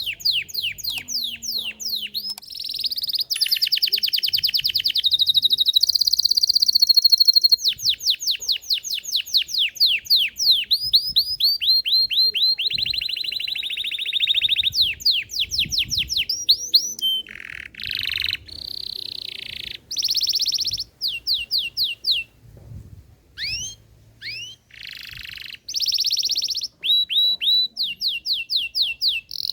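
Belgian canary singing a long song of fast trills: rapid runs of repeated down-sweeping notes alternating with buzzy rolls, unbroken at first and then in shorter phrases with brief pauses in the second half.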